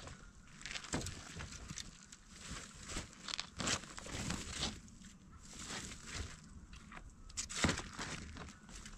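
Scattered light rustling with a few sharp clicks and knocks of people moving about and handling things, the loudest pair of knocks near the end.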